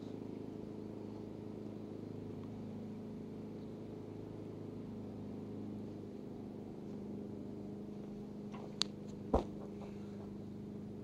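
A person's feet landing hard on the ground after a backflip jump off the top of a playground climbing frame: a sharp click, then about half a second later a single loud thud, near the end. A steady low hum runs underneath.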